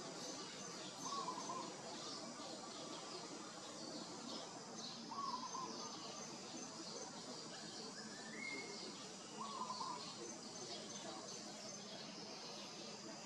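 Birds calling over steady outdoor background noise: a short, wavering mid-pitched call repeats about every four seconds, a single rising call comes about eight seconds in, and faint high chirps are scattered throughout.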